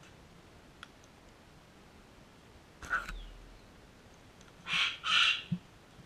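Sulphur-crested cockatoos giving harsh, raspy squawks: one short call about halfway through, then two louder ones in quick succession near the end.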